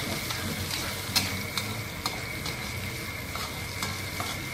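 Sliced shallots, garlic, galangal and bay leaves sizzling in hot oil in a wok, stirred with a metal spatula that scrapes and taps sharply against the pan a few times.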